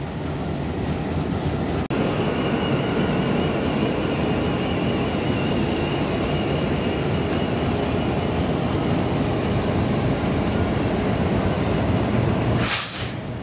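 Diesel-electric locomotive standing with its engine running: a steady low rumble, joined about two seconds in by a steady high-pitched whine. A brief loud rush of noise comes near the end.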